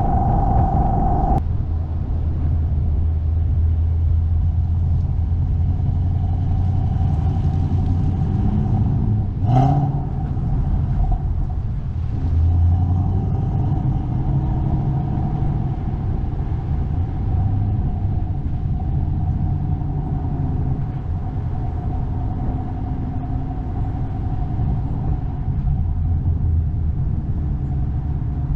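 Ford Mustang on the road: a steady low engine and road rumble. A short sharp sound with a quick rising pitch comes about nine seconds in.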